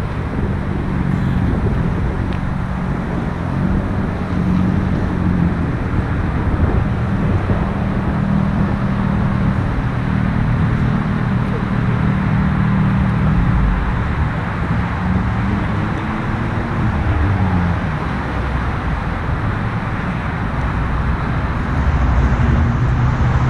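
Car engine running steadily under a constant hiss, its pitch rising and falling briefly about two-thirds of the way through.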